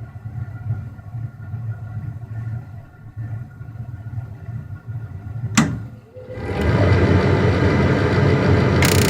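A 1997 Lennox two-stage gas furnace starting up on high stage. A low rumble runs first. About five and a half seconds in comes a sharp click, and then the burners light with a rising rush that settles into a loud, steady roar.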